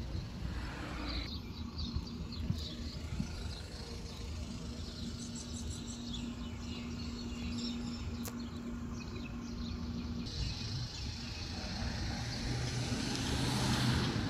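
Outdoor street ambience: a steady low rumble of road traffic that grows louder near the end, with a few faint bird chirps.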